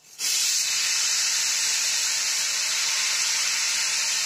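Potato cubes frying in oil and chilli powder in a kadai hiss and sizzle as water is sprinkled over them by hand and flashes to steam. The hiss starts suddenly and holds steady, easing a little near the end.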